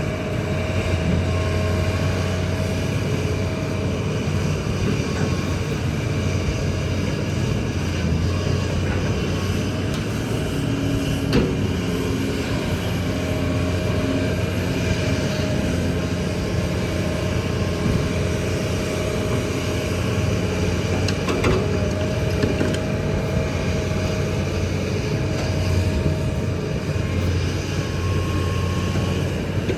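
Kobelco excavator's diesel engine running steadily under work, with a thin steady high tone over it and a couple of sharp knocks, about eleven and twenty-one seconds in.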